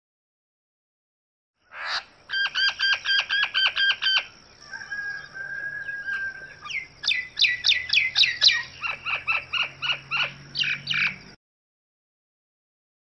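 A bird calling, as a recording: a fast run of about ten repeated notes, then a short steady whistle, then a string of quick sharp notes sliding down in pitch. It starts after a second or two of silence and cuts off suddenly near the end.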